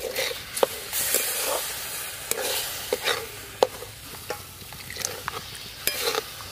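Steel spatula scraping and stirring in a steel karahi, working milk into semolina fried in ghee, with several sharp clinks of the spatula against the pan. The milk sizzles as it is poured a little at a time onto the hot semolina.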